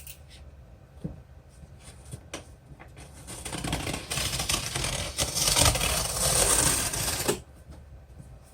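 Packing material being handled: a few light clicks and knocks, then about four seconds of loud rustling and scraping that stops abruptly.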